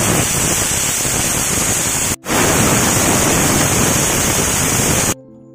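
Aluminium pressure cooker's weight valve whistling: a loud jet of steam hissing out in two long blasts, a sharp break about two seconds in, cutting off shortly before the end. The whistles mark the pressure reached while the taro boils, two being the count for doneness.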